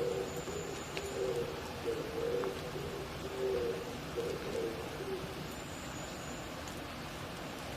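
Oriental turtle dove (Korean mountain pigeon) cooing, a low phrase repeated over and over that stops about five seconds in, over a steady hiss of rain.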